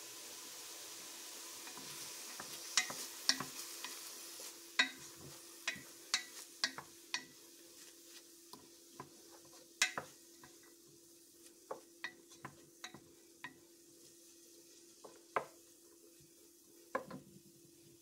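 Wooden spoon stirring chopped onion in a stainless steel pot, knocking and scraping against the pot at irregular moments. Under it the onion sizzles softly as it sautés in olive oil.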